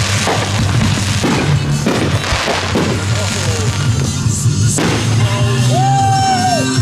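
Loud recorded music with fireworks going off over it: several sharp bangs in the first five seconds, and a held high tone that bends near the end.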